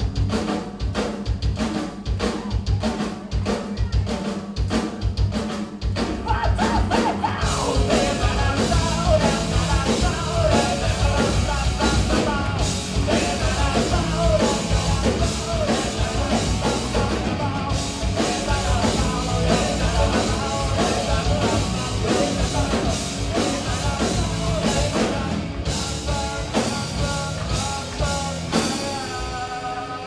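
Live rock band playing, with drums, bass and guitar. Hard, fast drum hits lead the first few seconds, then a male singer sings and shouts over the band from about seven seconds in.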